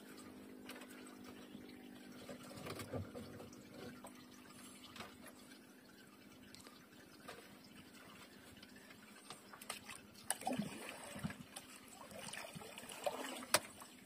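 Seawater trickling and dripping off a wet fishing longline as it is hauled hand over hand into a small boat, with scattered light knocks and splashes that get busier in the last few seconds.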